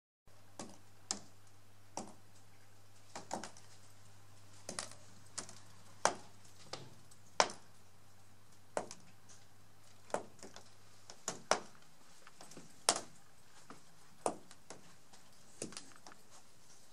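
Irregular sharp taps and clicks, roughly one a second, some louder than others, over a faint low hum that stops about eleven seconds in.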